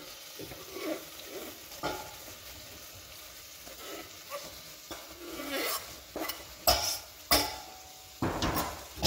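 Sliced onions scraped with a knife off a plastic cutting board into a pot of hot olive oil and butter, sizzling as they land. Several sharp knocks and scrapes of the knife on the board and the pot, the loudest in the second half.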